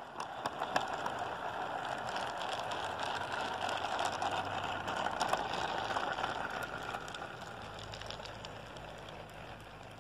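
HO-scale model freight train rolling past on garden track: a steady rattling rumble of small metal wheels on the rails, with many light clicks. It fades over the last few seconds as the last cars go by.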